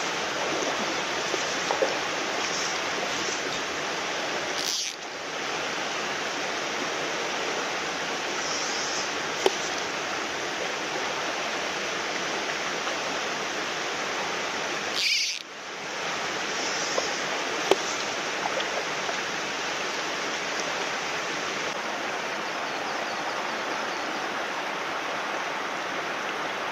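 Steady rushing of a shallow mountain stream over stones, dipping briefly twice.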